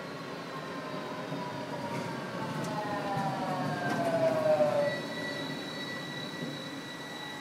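Low-floor articulated rnv tram passing close by: a whine falls in pitch as it goes past, loudest about four to five seconds in. Then a steady high squeal from the wheels holds to the end.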